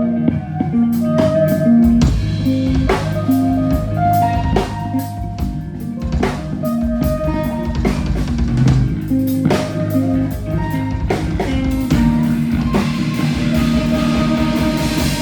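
A rock band playing live, with a drum kit and electric guitars. The drums come in hard about two seconds in, and the song ends with a long cymbal wash that cuts off and rings away.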